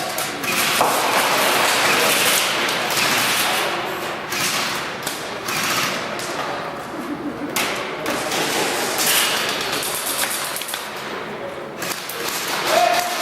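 Airsoft guns firing in rapid bursts, with a dense clatter of clicks and thuds from BBs striking surfaces.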